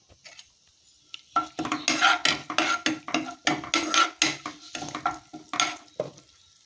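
A spoon stirring and scraping around a non-stick kadai, a quick run of knocks and scrapes starting about a second and a half in, while curry leaves sizzle in the hot oil.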